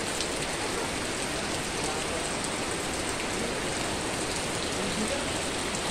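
Rain falling steadily on broad leaves and puddled ground, an even hiss that does not let up.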